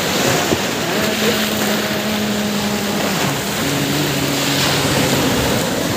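Surf washing onto a sandy beach, with wind on the microphone. A steady humming tone runs over it from about a second in, then drops to a lower, deeper hum around three seconds in that fades out about five seconds in.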